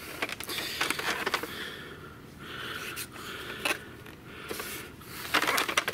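Hands handling a plastic Nerf blaster, with scattered light scrapes and taps of fingers and palm on the plastic shell, a little busier near the end.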